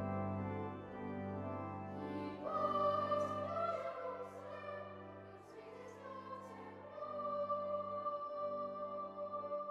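Background choral music: a low sustained drone, joined about two and a half seconds in by a high voice singing long held notes.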